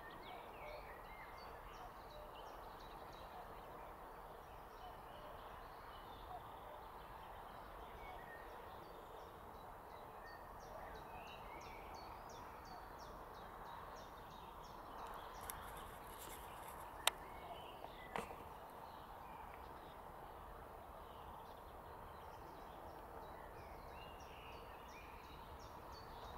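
Faint open-air meadow ambience with distant birds calling now and then and a faint, high, repeated ticking. Two sharp clicks come close together about two-thirds of the way through.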